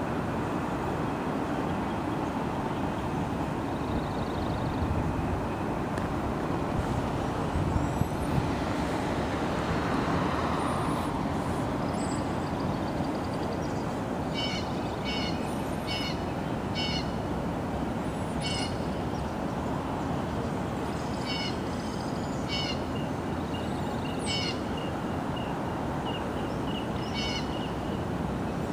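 A bird calls over and over in short, high notes, about once a second with pauses, from about halfway through. Under it runs a steady low rumbling noise, with a few brief knocks about a third of the way in.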